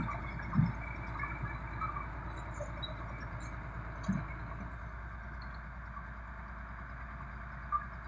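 Crawler bulldozer's diesel engine running under load while its blade pushes soil: a steady low rumble. A few short thumps stand out, about half a second in and again around four and eight seconds in.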